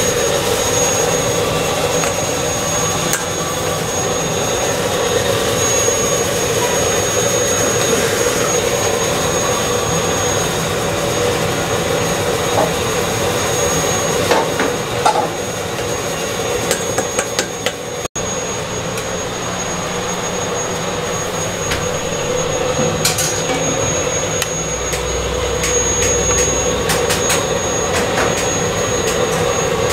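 Steady rushing noise of a gas burner firing under a large iron cauldron of boiling samgyetang broth, with a few light clicks about halfway through.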